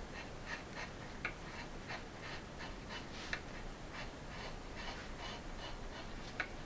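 Hand carving chisel cutting into wood: a quick, irregular run of short scraping cuts, roughly two or three a second, with a few sharper clicks.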